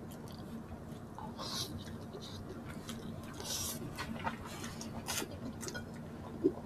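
Quiet close-up eating sounds: soft chewing and wet mouth noises with scattered small clicks, over a faint steady hum.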